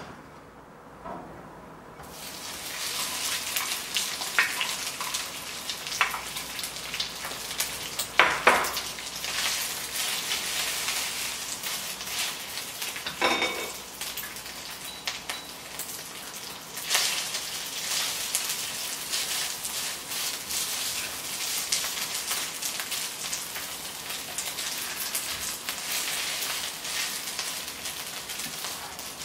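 Garlic fried rice sizzling in a nonstick wok, with a spatula scraping and knocking against the pan as the rice is stirred and pressed. The sizzle starts about two seconds in, and the loudest knocks come about 8 and 13 seconds in.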